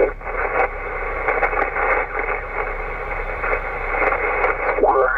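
2 m SSB transceiver's receiver audio while the tuning dial is turned across the band: steady band hiss cut off sharply above the sideband filter, with snatches of sideband signals sliding in pitch as they are tuned past, clearest near the end.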